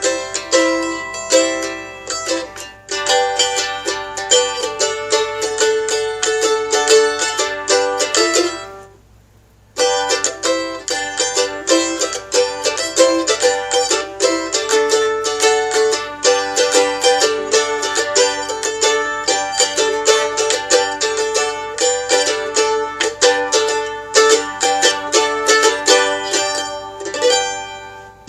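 Mandolin playing a tune in quick picked notes. It stops for about a second around nine seconds in, then carries on.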